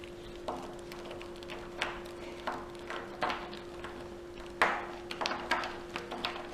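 Snake cube puzzle being scrambled by hand: its elastic-strung cubelets clack and knock against each other as the chain is twisted apart, in irregular sharp clicks, the loudest a little past the middle.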